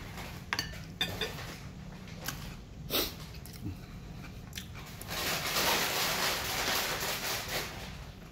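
Eating at the table: a few sharp clicks of a metal fork against a ceramic plate, then a louder stretch of chewing for a couple of seconds near the end.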